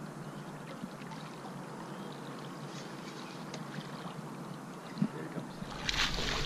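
River water lapping steadily against a boat hull, then near the end a splash as a hooked white sturgeon breaks the surface.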